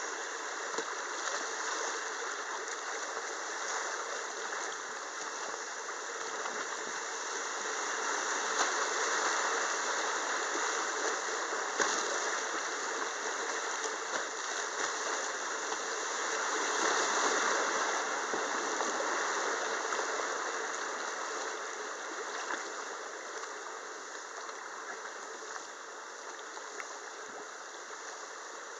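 Shallow river rapids rushing around a kayak, a steady wash of whitewater that swells twice and eases off near the end as the water flattens.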